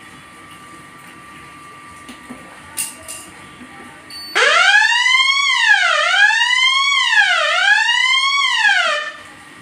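Electronic fire alarm siren going off in fire condition, triggered by the smoke detector under test. About four seconds in it starts with a quick rising sweep, then wails down and up about every one and a half seconds, and cuts off abruptly about five seconds later. Before it there is only a faint steady hum.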